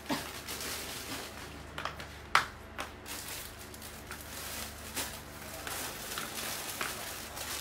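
A plastic garment bag crinkling and clothes rustling as they are picked up and handled, with scattered soft knocks; the sharpest is about two seconds in, over a faint low hum.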